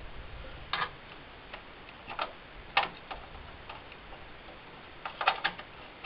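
Scattered sharp plastic clicks and taps as a desktop memory stick is handled and pushed into its motherboard slot: single clicks spaced a second or so apart, then a quick run of clicks near the end.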